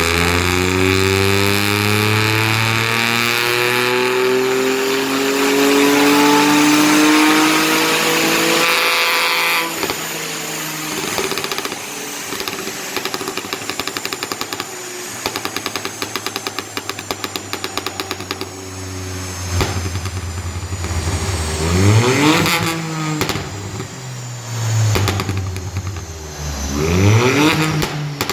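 Ford Fiesta 1.0 EcoBoost three-cylinder turbo petrol, decatted and remapped with a crackle map on overrun, revving. The revs climb slowly and are held for about nine seconds, then drop off suddenly into a long run of rapid exhaust crackles and pops lasting about nine seconds. The engine then settles to idle and is blipped twice near the end, each blip followed by more crackles.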